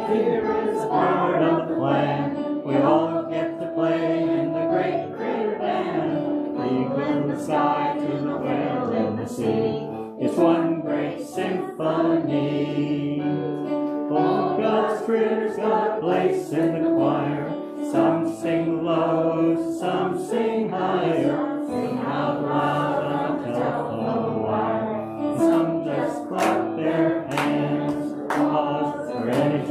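A hymn with a group of voices singing together over instrumental accompaniment.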